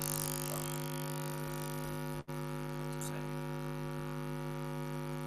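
Steady electrical mains hum with a buzzy stack of overtones, cutting out for an instant about two seconds in.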